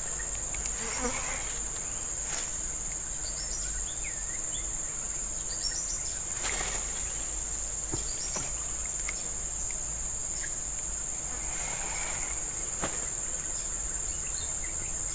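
Insects buzzing in one steady high-pitched drone, with a few faint short chirps over it.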